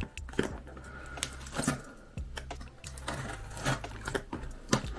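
Irregular clicks, knocks and crinkles of a cardboard shipping package being handled and opened by hand, over a low steady hum.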